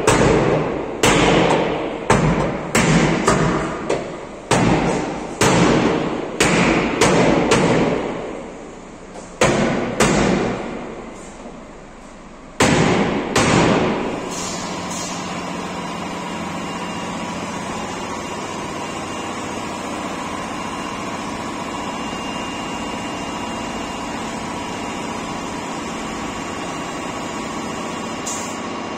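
Hammer blows on a truck cab's sheet-metal body held under chain tension on a frame-straightening bench: a dozen or so heavy, irregularly spaced strikes, each ringing out, over about the first fourteen seconds. After that a steady mechanical hum runs on.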